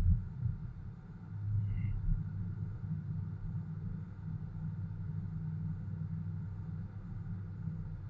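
Low, steady road and engine rumble of a car driving on a snowy road, heard from inside the cabin, with a sharp thump from a bump right at the start.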